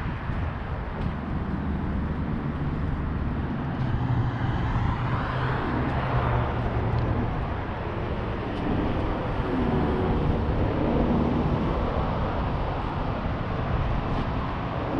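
Steady outdoor road-traffic noise, with one vehicle passing louder about four to seven seconds in.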